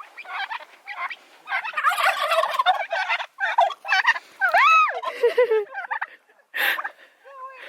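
Turkeys gobbling in several rapid, rattling bursts. One drawn-out call rises and falls about four and a half seconds in.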